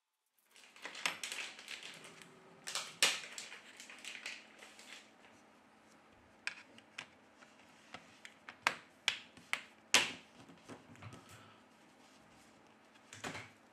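Irregular sharp plastic clicks and taps as a smartphone's back cover is fitted and pressed down onto the frame, its clips snapping into place. A quick run of clicks comes about nine to ten seconds in, with a few more near the end.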